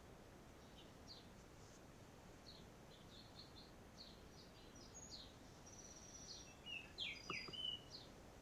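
Faint birdsong: small birds chirping in short, high notes, busier and a little louder near the end.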